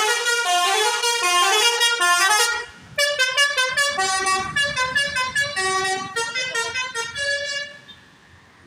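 Indonesian bus "telolet" musical horn playing a quick tune of stepped notes. It plays in two phrases with a short break between them, and the second phrase dies away near the end.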